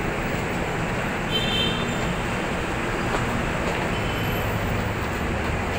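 Steady rumble of rail and road traffic, with a brief faint high-pitched tone about a second and a half in.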